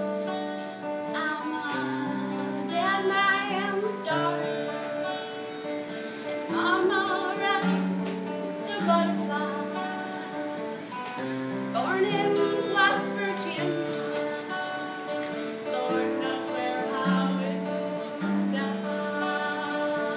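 A woman singing a song over a strummed steel-string acoustic guitar, her voice wavering on held notes.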